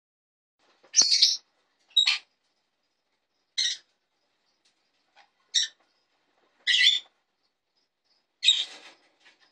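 Jenday conure calling: six short, high-pitched calls spaced a second or two apart.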